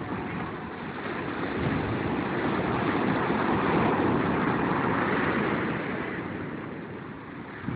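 Ocean surf: waves breaking in the shore break and washing up the beach, a steady rush that swells to its loudest through the middle and eases toward the end.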